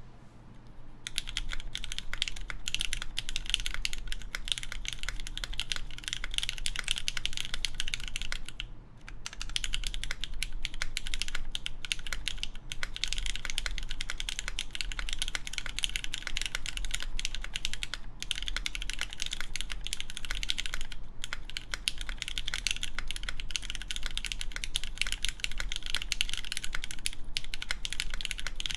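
Continuous typing on a mechanical keyboard with lubed Cherry MX Black linear switches, GMK Carbon keycaps and a full aluminium plate: a dense, steady run of keystroke clacks that starts about a second in, with a brief pause about nine seconds in.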